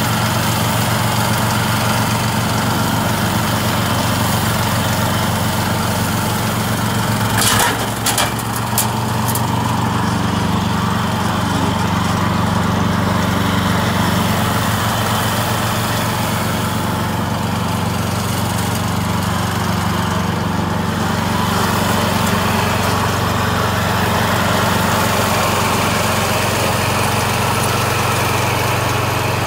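Lifan petrol engine of a walk-behind brush mower running steadily under load as the mower cuts through tall, thick grass. A few sharp clicks come about seven to nine seconds in.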